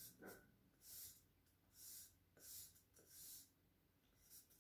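Charcoal stick scratching across drawing paper in quick repeated strokes, about six short faint hisses, one every half second to a second.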